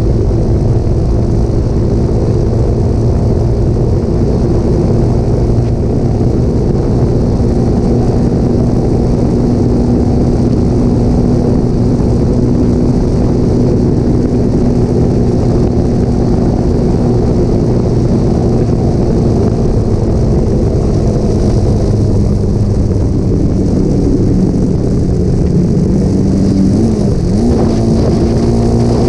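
Motorcycle engine running through a Scorpion aftermarket muffler at a steady, even pitch. Near the end the revs sag briefly, then pick back up.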